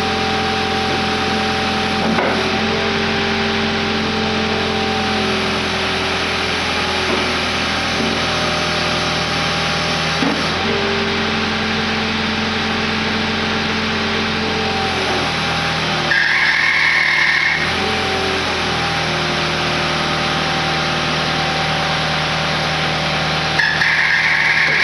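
Skid steer engine running steadily, its speed shifting a few times as the hydraulic angle blade attachment is worked. A high whine rises over it twice, about a second and a half each, about two-thirds of the way in and again near the end.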